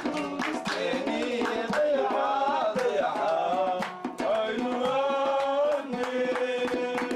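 Live Somali song: a voice singing a gliding, ornamented melody over plucked oud, with a steady beat of hand percussion.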